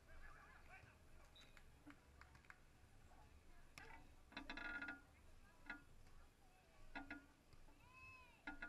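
Faint, distant sounds of a beach volleyball rally: a few soft knocks of hands on the ball and a short shout from a player about halfway through, over quiet open-air background.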